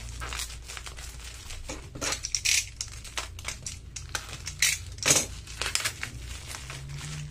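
Bubble wrap and thin plastic packaging crinkling and rustling in the hands as it is peeled off a strip of small plastic pots, with a few louder crackles.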